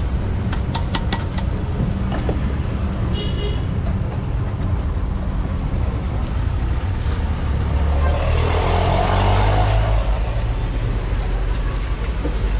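Road traffic: a steady low engine rumble with a brief horn toot about three seconds in. A vehicle passes and gets louder between about eight and ten seconds in. A few sharp clicks sound in the first second and a half.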